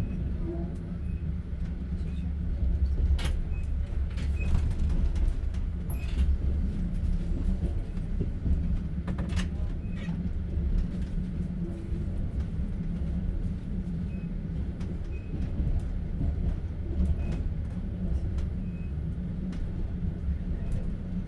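Interior of a moving open-plan (platzkart) railway sleeping car: a steady low rumble of wheels on track with scattered knocks and clicks from the wheels and carriage.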